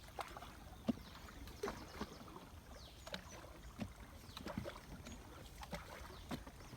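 Paddle strokes on a river coracle: scattered light knocks and small water splashes at irregular intervals over a faint low rumble of moving water.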